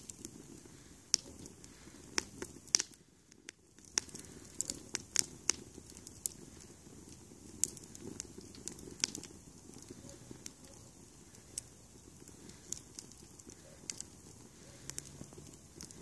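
Kiln-dried kindling burning briskly in a fire pit, crackling with sharp, irregular pops over a low, steady flame noise.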